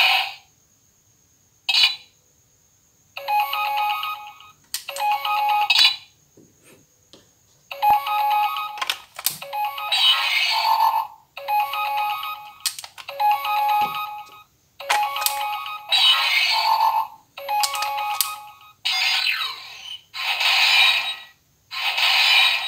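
Auldey DX Rescue Driver transformation toy playing its electronic sound effects through its small speaker: a string of short beeping, jingle-like bursts separated by brief silences, with a few sharp clicks between them.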